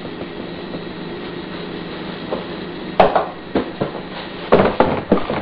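Kitchen clatter: a few sharp knocks of items being handled and set down on a counter, starting about three seconds in and coming thicker near the end, over a steady background hum.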